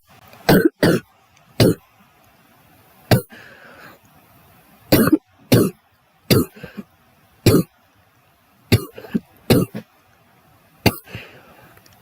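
A girl coughing again and again: about a dozen short, sharp coughs, some single and some in quick pairs, with faint breathing between them.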